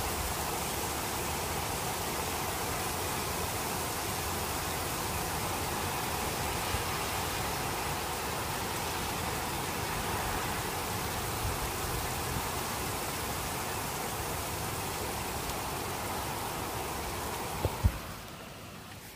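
Torrential rain pouring down in a dense, steady hiss. Near the end it fades out, with a couple of brief knocks just before.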